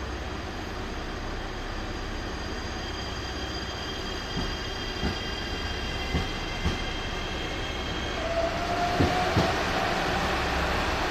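JR Shikoku 7200 series electric train pulling out and passing close by, its inverter whining in several high steady tones, with the wheels knocking over rail joints in pairs. About eight seconds in a lower tone starts and rises in pitch as the train gathers speed.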